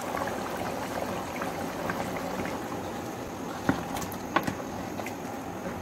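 Mutton curry simmering and bubbling in a pot as yogurt is stirred in with a spatula, with a few sharp clicks of the spatula against the pot a little past the middle.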